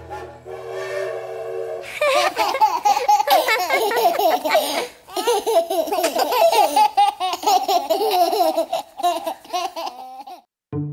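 The last notes of a song fade out over the first two seconds. Then cartoon children and a baby laugh and giggle together for about eight seconds, and the laughter cuts off shortly before the end.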